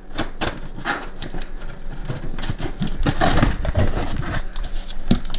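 Knife blade cutting through packing tape and cardboard on a shipping box: a quick, irregular run of scratchy clicks and crackles as the tape is slit.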